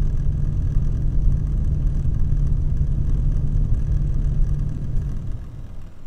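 Great Wall (Changcheng Binghuang) 360 mm all-in-one liquid CPU cooler running with a loud low hum and a rough clacking rattle, its recurring abnormal noise that the owner takes for a faulty cooler. The sound fades away about five and a half seconds in.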